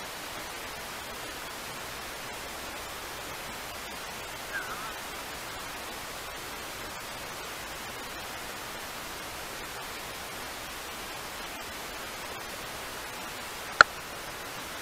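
Steady, even background hiss of outdoor noise, with a short faint chirp about four and a half seconds in and a single sharp click near the end.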